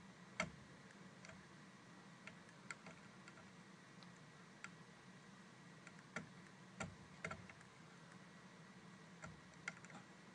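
Irregular small clicks and taps from fingers handling an RGB LED and pushing its wire leads into a plastic solderless breadboard, over near-silent room tone. The loudest click comes about half a second in, and a few more come close together past the middle.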